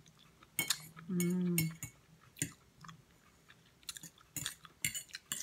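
Someone eating crab: a run of short sharp clicks and smacks of chewing, with a brief held hum of a voice about a second in.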